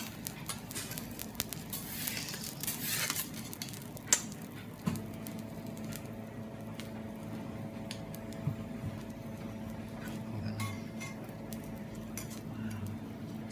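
Teppanyaki cooking on a steel griddle: metal spatulas clink and tap on the hot plate while food sizzles, with one sharp metallic click about four seconds in. A steady low hum starts about five seconds in.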